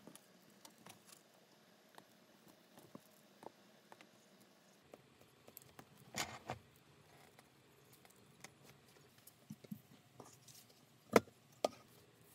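Faint taps and small clicks of a blue leather strap with a metal ring being handled on a cutting mat. There is a brief clatter about six seconds in, and two sharp clicks near the end are the loudest sounds.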